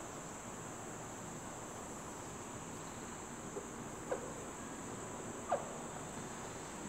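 Marker squeaking on a whiteboard in short strokes, three times in the second half, as a diagram is drawn. Under it runs a steady high-pitched whine.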